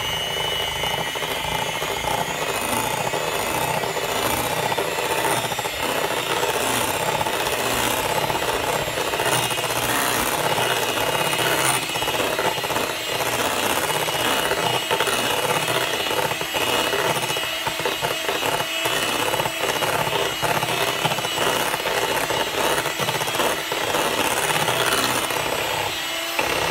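Electric hand mixer running steadily, its beaters whirring through whipped cream and caramel condensed milk in a glass bowl; it is switched off near the end.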